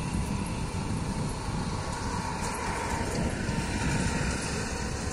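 Ferry engine running with a steady low rumble, mixed with wind noise on the microphone.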